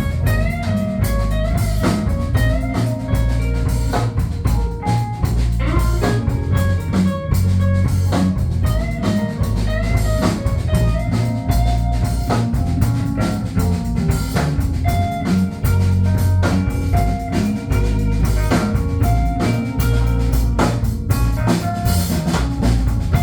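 Live band playing an instrumental passage of a song: a drum kit keeps a steady beat under a heavy bass line, with a guitar carrying a stepping melody.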